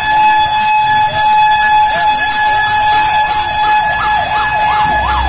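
Fire truck sirens: a steady held tone, then from about three seconds in a warbling siren that rises and falls ever faster and louder.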